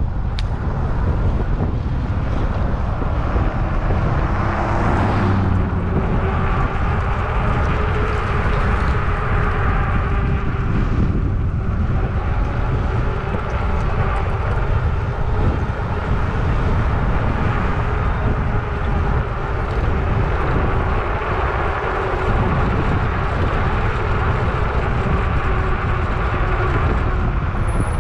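Steady engine drone under an even rushing noise, holding a constant pitch.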